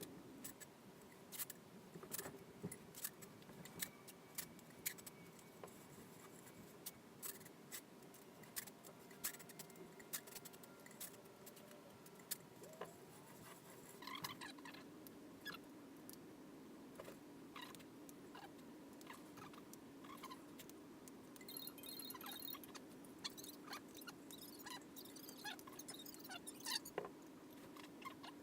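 Faint, scattered clicks and small handling noises as silicone sealant is worked into the seam of a three-piece wheel.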